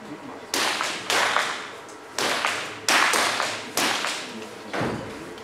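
.22 free pistols firing in an indoor range hall: six sharp shots spread over about four and a half seconds, each trailing off in a short echo.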